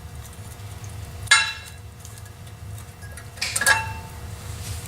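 Worn disc brake pads being popped out of a rear caliper bracket: metal clinks, two sharp ones with a brief metallic ring, about a second in and again past halfway.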